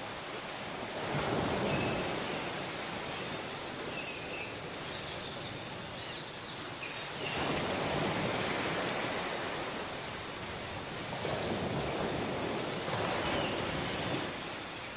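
Ocean surf: waves washing in and drawing back, the rush swelling about three times and easing between, with a few faint short high chirps.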